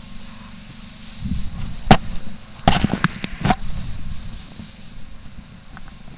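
Snowboard sliding over packed snow, a low rumble that grows about a second in, with wind buffeting the action camera's microphone. A few sharp knocks or cracks come around the middle, the loudest about two seconds in.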